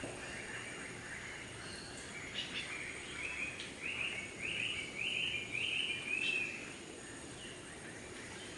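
Tropical jungle ambience: a bird repeats a short rising-and-falling call note about twice a second, growing louder through the middle and then stopping, over a steady faint background of insects.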